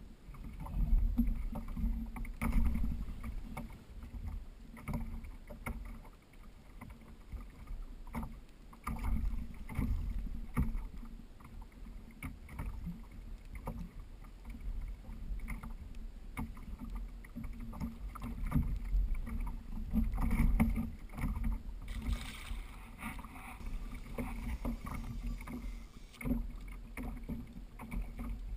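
Irregular knocks and bumps of gear being handled on a plastic sit-on-top fishing kayak, over an uneven low rumble.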